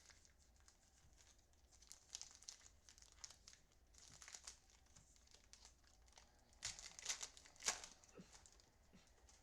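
Trading cards being handled and slid against each other: faint rustling with a few sharper crinkling swipes.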